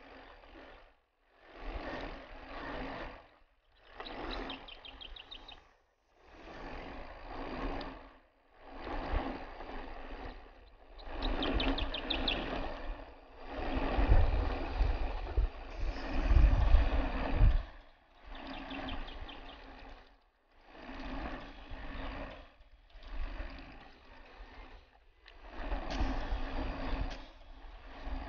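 Mountain bike riding over a dirt trail: rattle and rolling noise from the tyres and drivetrain come in pulses about every two seconds. There are three brief runs of rapid high clicking, and a heavy low rumble from bumps and wind comes in the middle.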